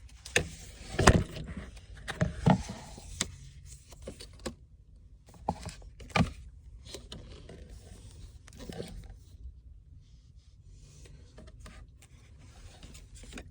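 Hands handling paper inserts and a cardboard gift box: rustling and scraping with several sharp taps and knocks, loudest about a second in, at two and a half seconds and near six seconds, then quieter rubbing.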